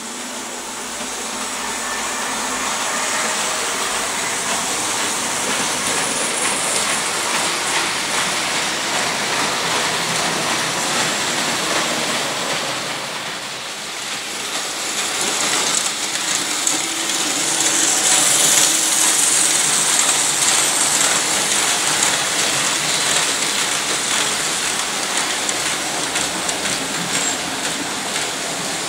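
Märklin model trains running on grey metal track: a steady rattling whir of wheels clicking over the rails and small electric motors, dipping briefly about halfway and a little louder afterwards.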